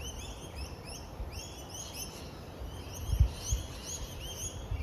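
Small birds chirping continuously in quick, short, rising notes, with a dull low thump a little over three seconds in.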